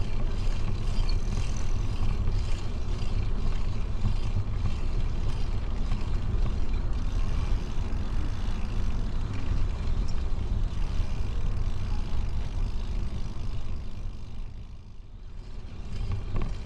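Wind buffeting the microphone of a camera on a moving bicycle: a steady low rumble with rushing noise above it, easing off for a moment near the end.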